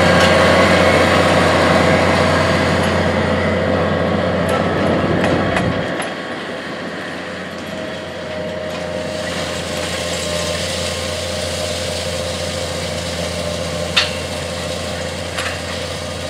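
AGCO White 145 tractor's diesel engine running steadily while pulling a 12-row corn planter through the field. About six seconds in it gets a little quieter and loses its deepest low end, and a single sharp click comes near the end.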